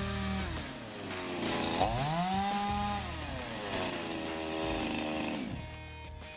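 Small Redwood chainsaw running and cutting wood, its engine note rising and falling as it is revved, with electronic dance music underneath. The saw dies away near the end.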